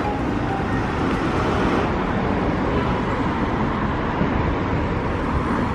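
Steady rumble and running noise of a moving vehicle, even and unbroken.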